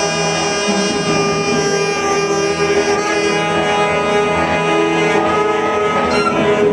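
Live experimental music: saxophones and prepared guitar holding a dense, steady drone of sustained tones.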